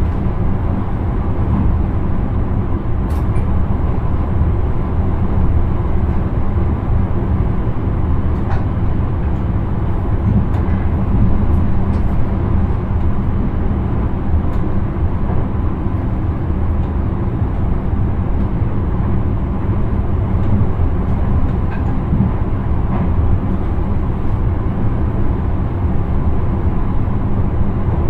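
Intercity train running at speed, heard from the driver's cab: a steady low rumble of wheels on rail with a few faint clicks.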